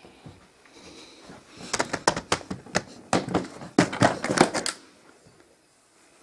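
Hard little objects clattering in a plastic art-supply case as a hand rummages through it: a quick, irregular run of clicks and clacks lasting about three seconds, starting a couple of seconds in.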